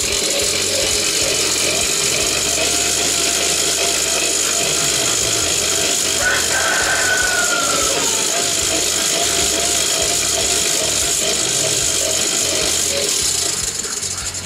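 Hand-crank forge blower, Chinese-made, whirring steadily as it is cranked, its fan and gears giving a continuous whir with a steady whine as it forces air into a coal forge. The sound dies down near the end as the cranking stops.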